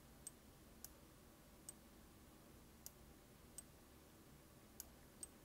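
Near silence broken by about seven faint, scattered clicks of a computer mouse and keyboard as brush strokes are clicked in.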